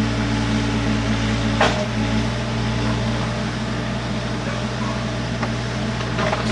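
Steady mechanical hum, even and unchanging, with one short click about one and a half seconds in.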